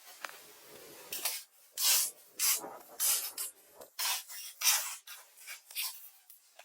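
About nine short, bright scraping or rasping strokes, irregularly spaced at roughly two a second, starting about a second in.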